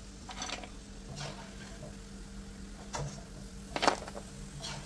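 A steel slotted spoon tapping and scraping as fried ivy gourd snack pieces are dropped onto a paper-towel-lined plate: about five short clicks, the loudest just before four seconds in, over a steady low hum.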